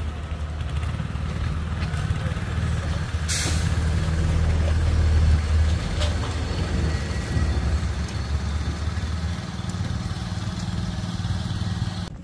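Small engine of a walk-behind farm cultivator running steadily as it is driven along a row laying plastic mulch, easing off a little near the end. A sharp click sounds about three seconds in.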